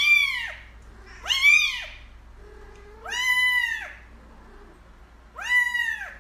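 Kitten meowing: four high-pitched meows a second or two apart, each rising then falling in pitch.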